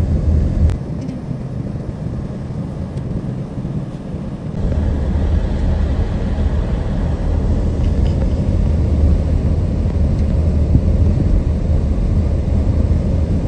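Car driving, with a steady low rumble of road and engine noise heard from inside the cabin. It is quieter for a few seconds, from about a second in.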